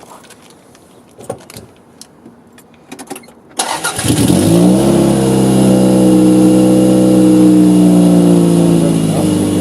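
Toyota Celica engine started after a few faint clicks: it cranks briefly, catches about three and a half seconds in and settles into a steady idle with no revs given. It is being run to listen for an exhaust leak at the catalytic converter, freshly sealed with exhaust repair paste, and is judged nowhere near as leaky.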